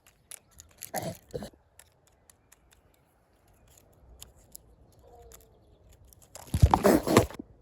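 Close handling noise: scattered small clicks and short scraping rustles, with a louder rustling burst near the end.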